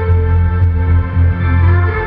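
Ambient electronic music, the soundtrack of a projection-mapping show: a loud, deep steady bass under slow, held synthesizer-like tones that shift pitch.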